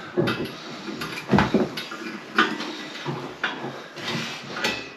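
A spanner clinking and clicking on the valve nut of a chrome towel radiator as it is tightened, with several sharp metallic knocks at uneven intervals.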